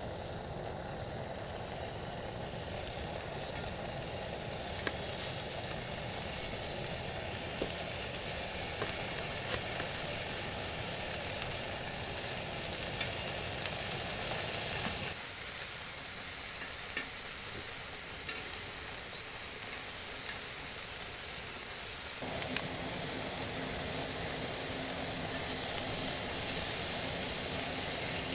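Slices of meat sizzling on a griddle pan over a gas camp stove, a steady frying hiss with scattered sharp pops.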